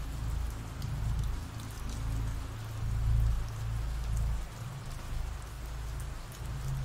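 Steady rain falling, with scattered drop patter over a low rumble that swells and fades underneath.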